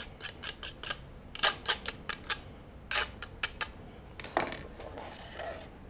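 Metal rasp grater being scraped and tapped to clear lime zest into a bowl: quick runs of short, scratchy strokes in three clusters, then softer rustling near the end.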